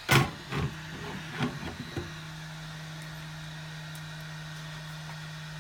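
Heat gun blowing with a steady hiss while the phone is warmed to soften its adhesive. A few sharp clicks and knocks come in the first two seconds, and a steady low hum sets in about two seconds in.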